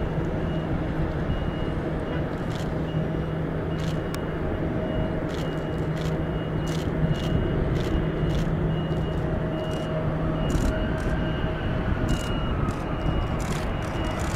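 Air Canada Boeing 787's General Electric GEnx jet engines running at low landing power as the airliner flares, touches down and rolls out, a steady rumble with a faint tone that rises and falls in pitch about two-thirds of the way through.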